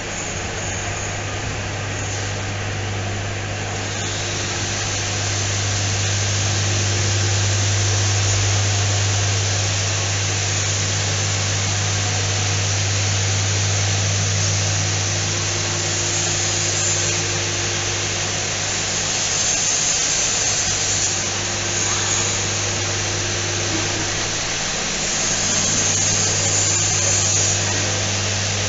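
Factory machinery running steadily: a constant low hum with an even hiss over it.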